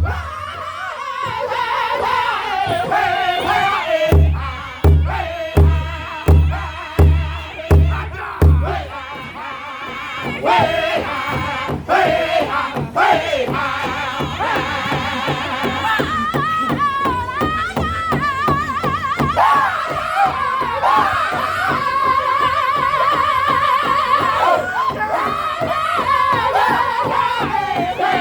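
Powwow drum group singing a chicken dance song: high, wavering men's voices over a big drum. From about four to nine seconds in the drum hits hard, about two beats a second, then it drops back to a softer steady beat under the singing.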